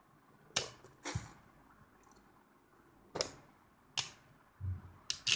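Two metal-wheeled Beyblade spinning tops clashing as they spin in a cardboard stadium: about six sharp clacks at uneven intervals, with one dull thump near the end.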